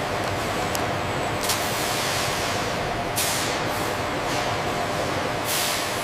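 Factory machinery running with a steady hum, broken three times by a sudden, short hiss that fades away, about every two seconds.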